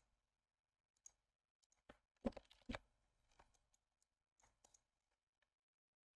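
Faint, scattered clicks of a computer keyboard and mouse, about a dozen short ones, the loudest pair between two and three seconds in, then near silence.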